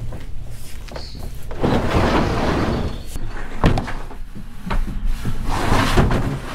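Plastic kayak hulls sliding and scraping along a ribbed pickup truck bed liner, with sharp knocks as they bump into place. There are two longer scrapes, with knocks between them.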